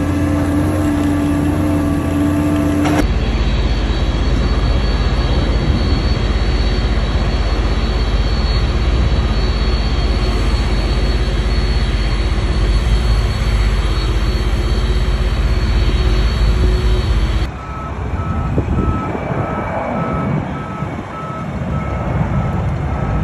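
Forklift engine running steadily, heard from its cab. Near the end this gives way to the rumble of a Boeing 747-400 freighter's four jet engines as it climbs out after takeoff, with an evenly repeating beep over it.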